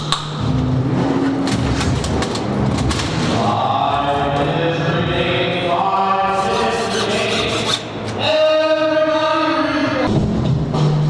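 Voices holding long, drawn-out chant-like notes, in two stretches of a few seconds each, over a low steady hum.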